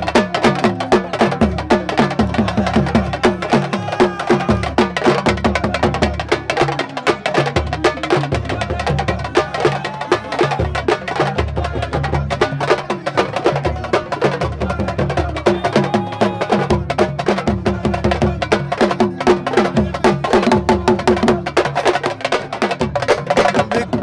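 Fast, dense drumming by a group of sabar drums, many sharp strikes in a driving rhythm, playing for dancers.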